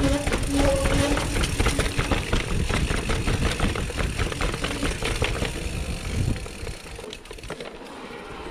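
Mountain bike clattering and rattling over stone steps and cobbles, a dense run of knocks from the wheels and frame. A broken low hum sounds in the first two seconds. The clatter eases after about six seconds as the bike rolls onto smoother paving.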